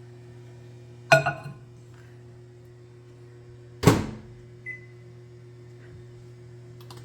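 Microwave oven being loaded and set: a ringing clink about a second in, a loud clack of the door near four seconds, then one short beep from the keypad, over a steady low electrical hum.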